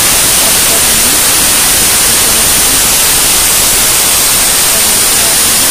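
Aluminium pressure cooker's weight valve venting steam on a gas stove: a loud, steady hiss with a thin high whistle. This is the cooker's whistle, the sign that it is at full pressure as the chana dal cooks.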